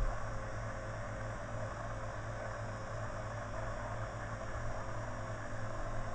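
Steady low electrical or mechanical hum with hiss: background room noise with no distinct event, and a brief low bump right at the start.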